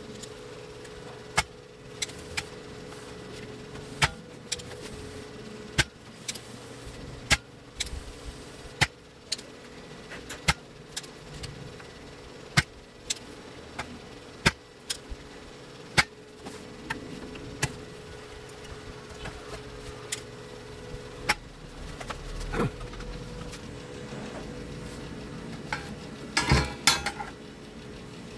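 Spring-loaded desoldering pump (solder sucker) being cocked and fired again and again as solder is sucked off a TV power-board's pads, giving sharp clicks every second or two over a steady low hum. A brief clatter comes near the end.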